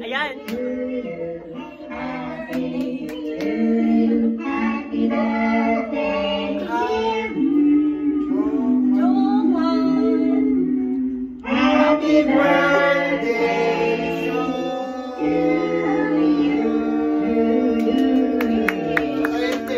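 A birthday song sung with musical backing, with a short break about eleven and a half seconds in.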